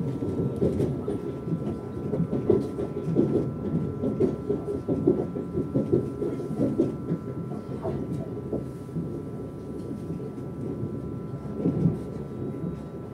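Inside the carriage of a Lastochka (Siemens Desiro RUS) electric train under way: the wheels rumble and clatter irregularly on the track. A faint steady high hum runs underneath.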